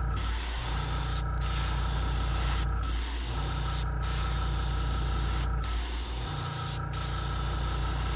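Airbrush hissing as it sprays paint in short passes. The hiss cuts out briefly about every second and a half as the trigger is let off, over a steady low hum.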